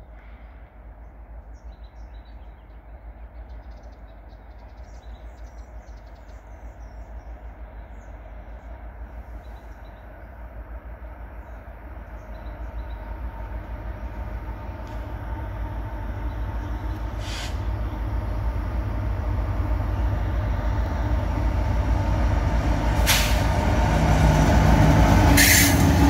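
Union Pacific diesel-electric freight locomotives approaching and passing close by, their engine rumble growing steadily louder. Birds chirp faintly at the start.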